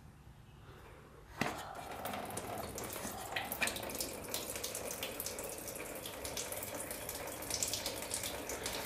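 Coolant draining out of a car radiator, a steady splashing trickle of liquid that starts suddenly about a second and a half in.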